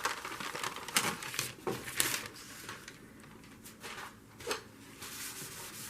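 Paper being handled, with light crinkles and taps. Near the end a soft, steady rubbing begins as dried glue blobs are rubbed off the paper.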